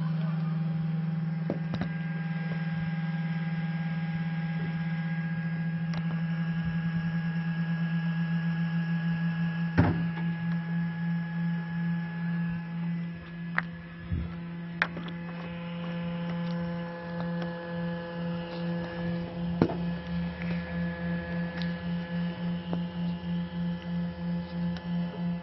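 H11 LED headlight bulb's built-in cooling fan running with a steady low hum that the owner finds too loud. About ten seconds in the hum starts to waver in a regular pulsing beat, and a few sharp clicks sound over it.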